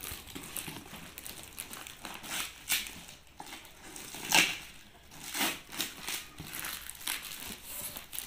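Packing tape on a cardboard box being slit with a box cutter and pulled away, and the cardboard flaps pulled open: irregular crinkling, scraping and ripping of tape and cardboard, loudest about four and a half seconds in.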